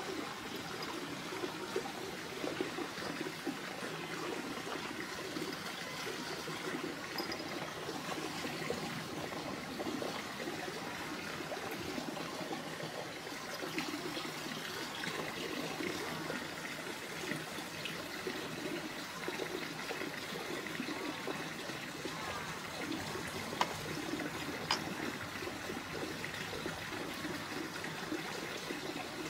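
Steady trickling of running water, with a couple of faint clicks a little past the middle.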